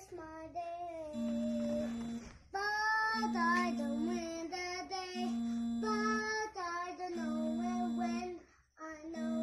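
Background music: a high singing voice over a sustained low note that repeats about every two seconds, with short breaks between phrases.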